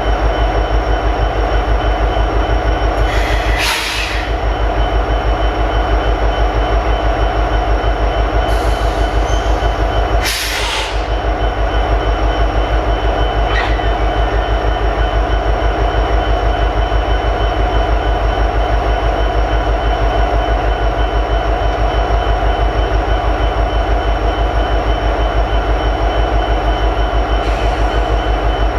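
EMD 16-710 two-stroke diesel prime mover of an SD70ACe locomotive idling with a steady, even pulse. Two short hisses come about four and ten seconds in.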